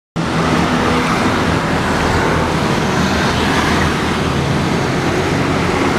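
An aircraft's engines running loud and steady as the plane takes off.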